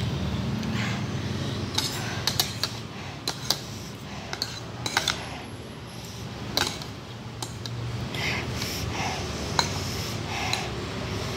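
Metal fork and spoon clinking and scraping against a ceramic bowl as noodles are lifted and twirled: a dozen or so sharp clicks, several in quick succession in the first half.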